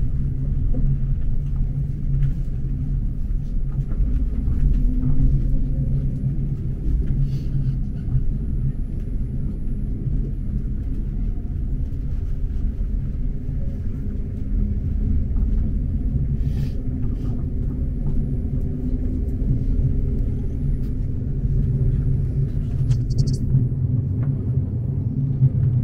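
Tram running along its track, heard from inside the car: a steady low rumble.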